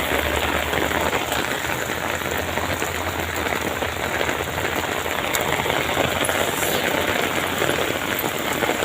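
Rain falling in a steady downpour: a dense, even hiss of drops striking surfaces.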